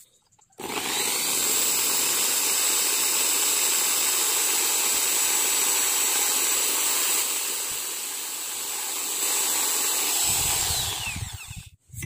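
Electric drill running steadily with a high motor whine while spinning a foam-rubber fishing float against sandpaper, sanding it to shape. It eases off about eight seconds in, picks up again, and stops near the end.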